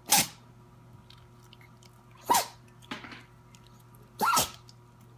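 Three quick, high sneezes about two seconds apart, each falling in pitch, with a fainter sneeze or snort just after the second.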